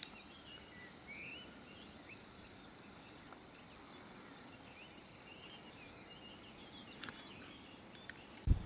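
Faint evening outdoor ambience: scattered short bird chirps over a steady high insect chorus, with one low thump near the end.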